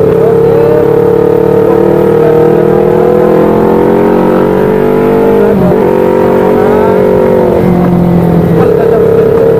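Two-cylinder Yamaha R25 engine in a modified Vixion motorcycle, running under way with a steady note. The pitch climbs slowly, dips briefly about halfway through, then holds steady again.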